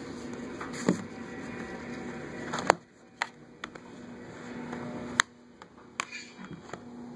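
Plastic Blu-ray case being handled and set down on a wooden table: a few sharp clicks and knocks, the loudest about two and a half seconds in, over a faint steady hum.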